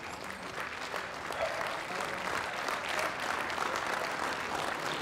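Ringside audience applauding the dogs as they are run round the ring, a steady clapping that grows a little louder about a second and a half in.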